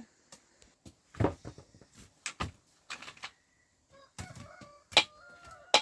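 Irregular knocks and thuds, about a dozen over several seconds, with a faint drawn-out animal-like call in the last couple of seconds.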